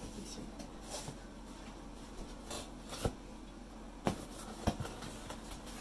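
Cardboard box and packaging rubbing and rustling as a boxed cookware set is worked out of its box, with a few sharp knocks, the clearest about three and four seconds in.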